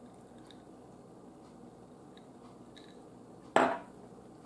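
A glass of iced drink set down on the table with one sharp clunk about three and a half seconds in. Before that the room is quiet, with a few faint ticks.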